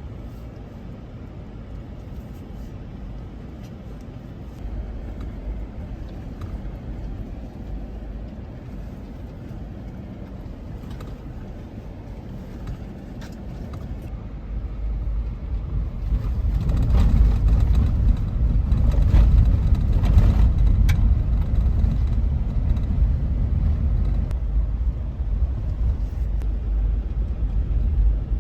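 A vehicle driving: a steady low rumble of engine and tyres that grows louder a little past halfway, with a few light clicks over it.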